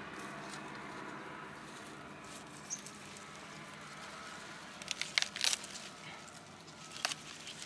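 Sharp snaps and cracks, a cluster about five seconds in and another near the end, as a hand of green dwarf bananas is wrenched and torn off the bunch's stalk.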